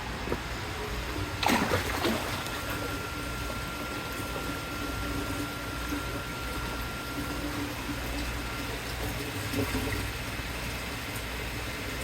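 Water trickling over a steady low hum, typical of an aquaponics system's circulating water. About a second and a half in there is a short, loud squeak falling in pitch.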